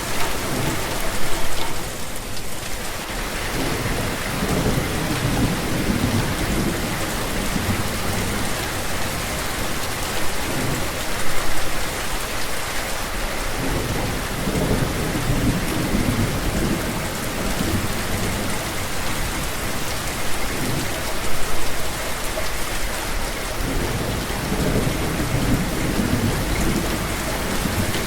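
Steady rain falling hard on a surface, with low rolling thunder rumbling in and fading away three times, about every ten seconds.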